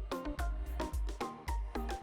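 Background music: quick plucked notes over a steady bass beat.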